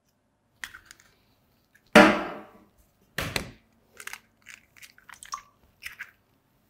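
Fresh eggs being cracked on a stainless steel mixing bowl: sharp knocks, the loudest about two seconds in with a brief ring from the bowl, another about a second later, then a run of small crackling clicks as the shells are pulled apart.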